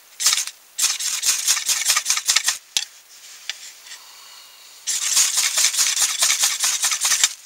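A knife spine scraped quickly down a fire steel (ferro rod), striking sparks into tinder. There are two runs of rapid scraping strokes with a short pause between them.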